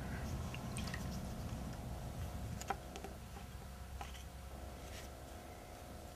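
Wet clay being worked by hand: faint soft squishes and light taps as a metal blade cuts strips of clay on a work board and fingers press them down, with one sharper tap about two and a half seconds in. A low steady hum runs underneath.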